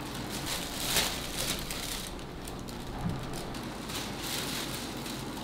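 Thin clear plastic crinkling and rustling as it is handled, with a sharper crackle about a second in.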